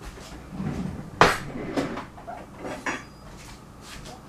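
Kitchen handling clatter: one sharp knock about a second in, followed by a few lighter clicks and taps.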